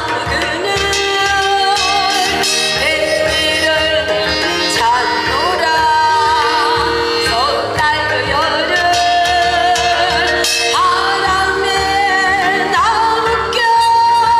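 A woman sings a Korean song into a microphone through a PA system, wavering widely on her held notes, over a backing track with a steady low beat.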